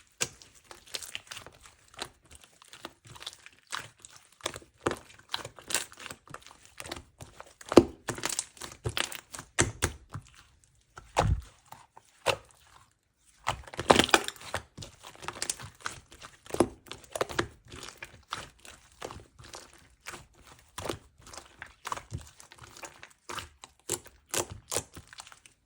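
Two-layer cloud slime being squished, folded and pulled apart by hand: a run of irregular soft crackles and clicks, with a few louder snaps and pops.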